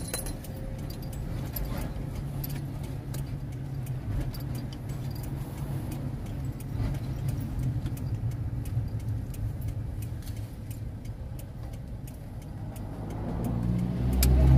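Pickup truck driving, heard from inside the cabin: a steady low engine and road rumble with light scattered ticks and rattles, swelling louder near the end.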